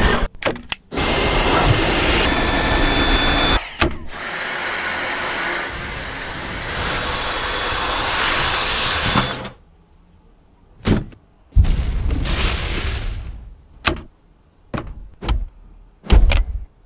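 Vacuum cleaner motor running with a high whine, in several short runs split by clicks and thunks; the motor stops about nine seconds in, leaving brief bursts of motor noise and sharp knocks.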